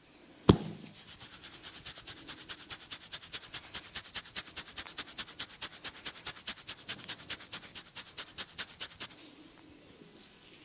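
A single sharp slap, then hands tapping rapidly and evenly on a person's forehead and head in a massage, about seven light taps a second, stopping about a second before the end.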